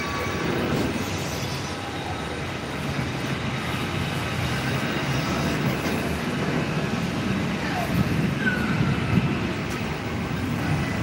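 Airport apron ambience: a steady low rumble of distant aircraft engines and ground vehicles, with faint voices.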